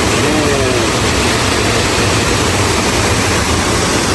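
Steady, even rushing of a waterfall: water falling and crashing into its pool.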